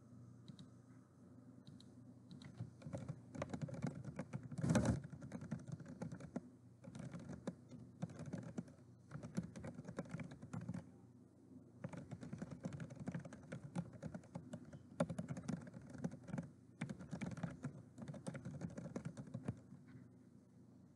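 Typing on a computer keyboard in quick runs of keystrokes broken by short pauses, with one louder knock about five seconds in.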